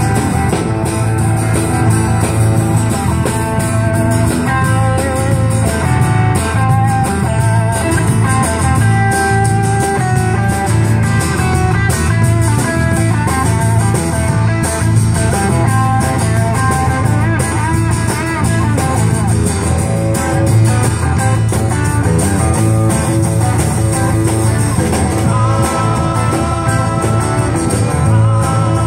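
Live band playing amplified rock music through PA speakers: electric guitar, acoustic guitar, electric bass and drums.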